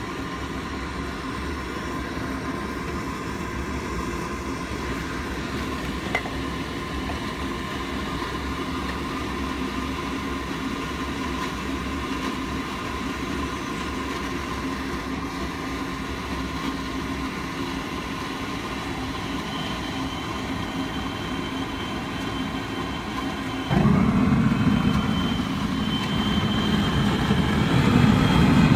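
Gas melting furnace burner and blower running steadily, a rumbling hiss with a few steady hum tones. About 24 s in it abruptly turns louder and deeper, and swells again near the end, as if the burner is turned up.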